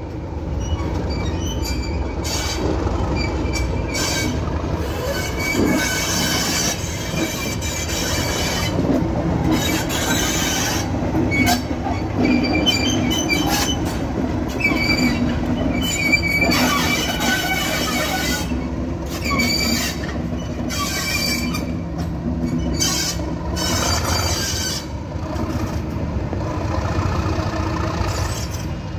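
Class 37 diesel-electric locomotive 37025 moving past, its English Electric 12CSVT V12 diesel running with a steady low note, and repeated high-pitched squeals from its wheels on the track.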